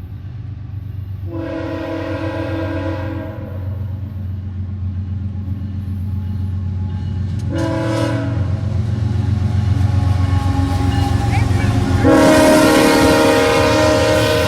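CSX freight train's diesel locomotive approaching, its engine rumble growing steadily louder, sounding its air horn chord three times: a long blast about a second in, a short one near the middle, and a long, loud one starting near the end.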